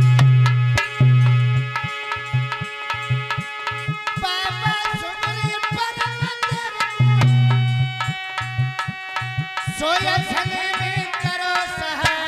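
Instrumental interlude of Aalha folk music: fast, dense hand-drum strokes over a steady low drone, with a wavering, ornamented melodic line that comes in twice, about a third of the way in and again near the end.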